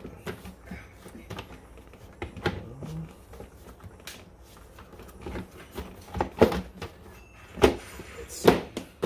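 Plastic housing parts of a portable power station knocking and clunking as they are shifted and fitted together, with a few louder knocks in the last few seconds.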